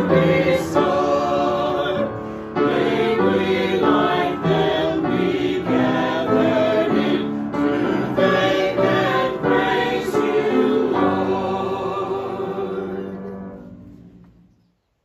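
Mixed church choir singing the closing lines of a hymn, ending on a long held final chord that fades away near the end.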